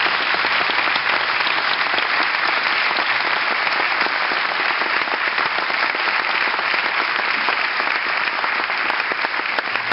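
Large audience applauding steadily, a dense, even patter of many hands clapping.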